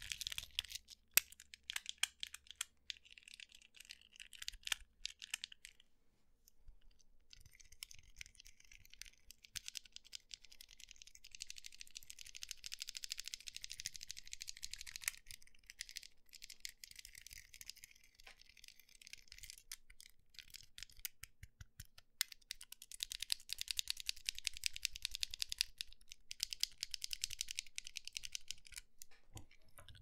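A plastic Fidget Cube worked right at the microphone: rapid, fine clicking and rattling from its small moving parts. It comes in runs with a brief pause a few seconds in.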